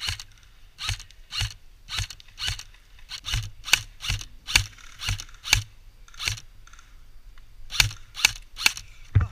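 Airsoft guns firing single shots, a string of sharp clicking pops at irregular spacing, one or two a second, with a short lull about two-thirds of the way through.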